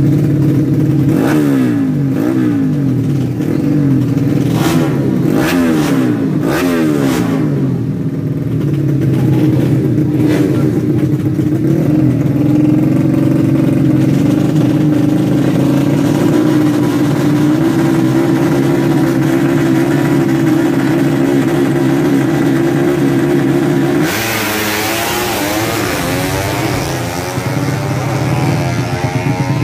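Tuned 130cc four-stroke underbone drag motorcycle engine revved in repeated blips, its pitch rising and falling several times over the first eight seconds, then running steadily at revs. About 24 seconds in the sound changes suddenly to a rush of noise with the engine pitch sweeping, as a bike accelerates.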